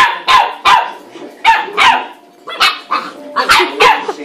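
A puppy barking in a run of short, sharp yaps, two or three a second with brief pauses: play-barking at another puppy through the bars of a wire pen.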